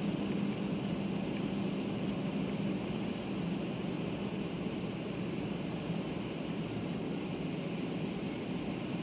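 500 Series Shinkansen's running noise heard inside the passenger car at speed: a steady low hum under an even hiss.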